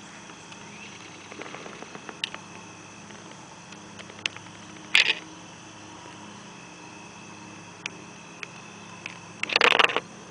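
Camcorder handling noise over the camera's own steady faint hum: scattered sharp clicks, a short loud rustle about five seconds in and a longer, louder rustle near the end.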